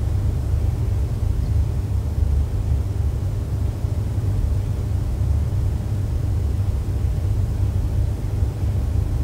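Steady low rumble of room noise in a large church, with nothing else standing out.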